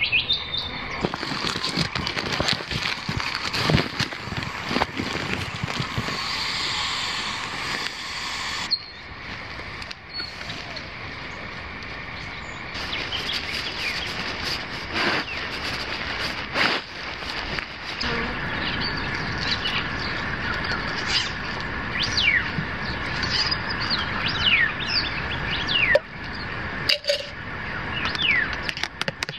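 Birds chirping and calling in short sloping chirps over an outdoor background, with scattered rustles and knocks of camping gear being handled.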